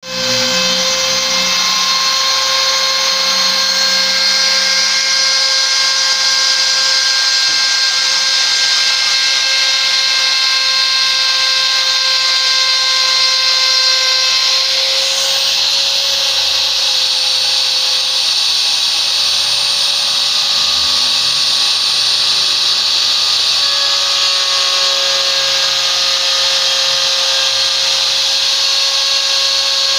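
CNC router spindle running with a steady high whine while a 60-degree V-bit engraves wood; the pitch mix shifts slightly about halfway through.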